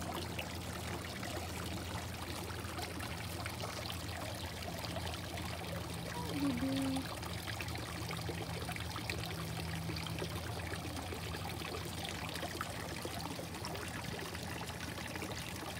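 Steady trickle and splash of running water in a garden pond, over a low steady hum. A brief low tone sounds once about six and a half seconds in.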